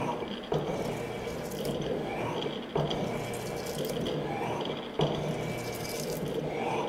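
Morey 12-inch vertical shaper running through its strokes while cutting an internal keyway in steel: a steady hum and hiss with a sharp knock about every two seconds, each knock led in by a short rising whine.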